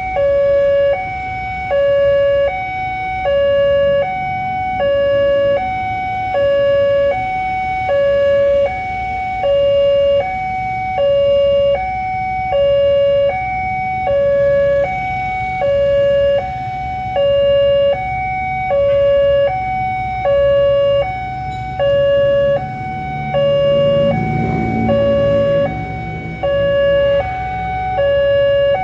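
Railway level-crossing warning alarm sounding a steady two-tone alternation, a lower and a higher tone each about half a second, repeating without a break: the signal that a train is approaching. A low rumble swells briefly about 24 seconds in.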